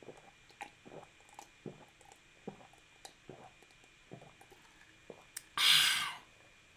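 A person gulping a drink from a mug: a run of soft swallows, about two a second, for some five seconds. Then one loud, breathy exhale as the mug comes down.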